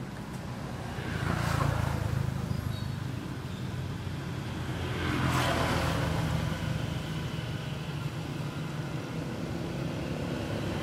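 Road traffic passing: a steady low engine hum, with two vehicles swelling past about a second and a half and five seconds in.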